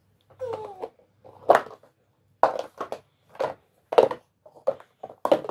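Toy stacking cubes knocking together and tumbling over onto a rug, a string of about nine separate dull knocks. A brief voice-like glide comes about half a second in.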